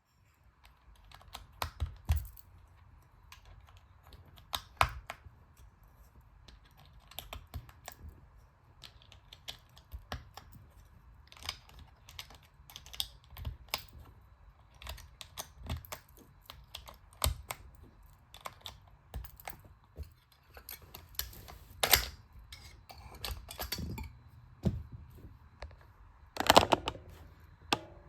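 Keychron K2 Pro mechanical keyboard being typed on: irregular key clacks in short runs with brief pauses, and a few louder strikes near the end.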